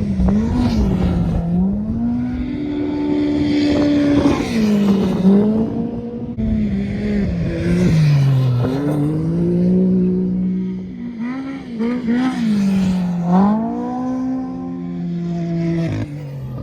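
Off-road race vehicle engines revving hard. The engine pitch climbs and drops back about four times as vehicles come through in turn.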